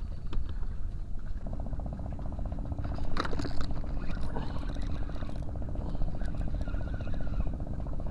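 A small engine running steadily with a rapid, even throb. It comes in about a second and a half in, over a low rumble, with a few brief knocks around the three-second mark.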